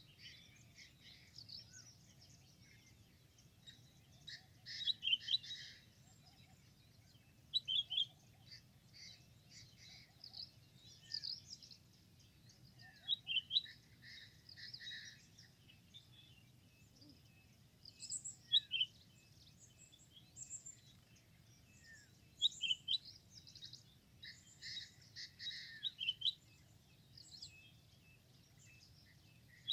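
Birds chirping and singing in short high phrases that come in clusters every few seconds, over a steady low background rumble.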